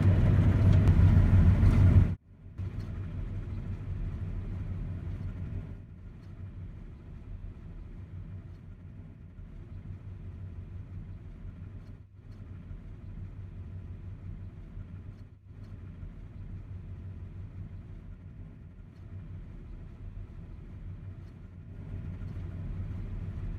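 Claas Lexion 760 combine harvester running, a loud steady drone for about two seconds. It then drops suddenly to a quieter steady engine rumble, broken by several abrupt cuts.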